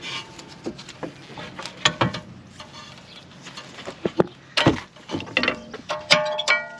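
Clicks and knocks of hands working a loosened rear brake caliper: the pad-wear sensor is unclipped and the caliper with its pads is lifted off the rotor, metal and plastic parts clicking and clinking. Near the end comes a brief ringing tone.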